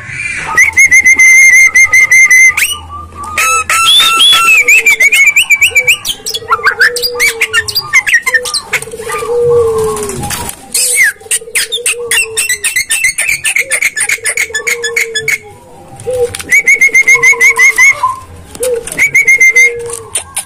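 Javan myna calling loudly in breeding condition: fast, harsh chattering rattles at the start and again near the end, and in between a run of gliding whistles mixed with repeated low, arched croaking notes.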